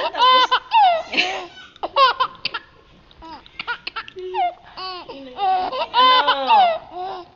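Runs of high-pitched laughter and giggling, breaking off and starting again several times, quieter for a moment in the middle.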